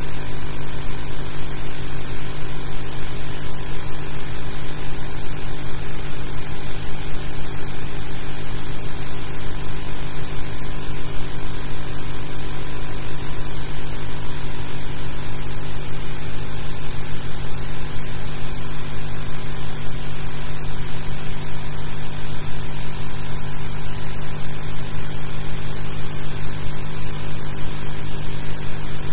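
Loud, steady hiss with a constant electrical hum, unchanging throughout and with no distinct events: the background noise of an old film soundtrack.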